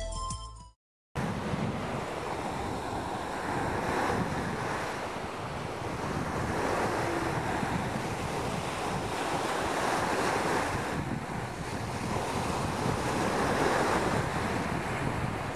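Sea waves washing onto a beach, the surf swelling and falling back every few seconds, with wind rumbling on the microphone. A piece of music fades out just before the wave sound begins.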